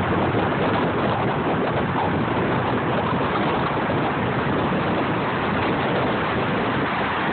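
Steady rushing tyre and wind noise of a car driving on a freeway, heard from inside the car.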